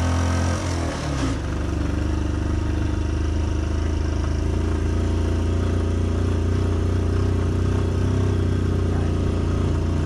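Motorcycle engine running under steady throttle while riding uphill. Its note shifts about a second in, then holds even.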